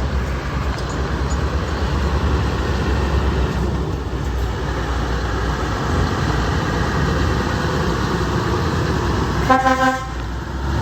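Steady road traffic rumble, then a single short truck air-horn blast of about half a second near the end.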